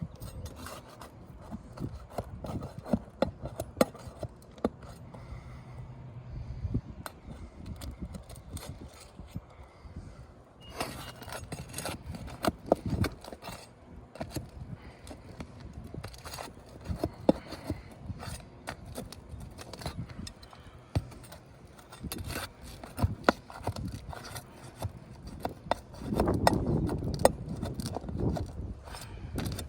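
Roofing nails being pried out from under asphalt shingles and the damaged shingle worked loose: repeated scraping of tool and shingle grit, with scattered sharp clicks. The scraping gets denser and louder near the end.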